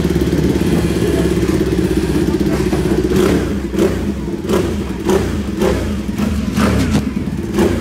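Ducati sport bike engine running steadily at idle. From about three seconds in, a series of short sharp sounds cut across it.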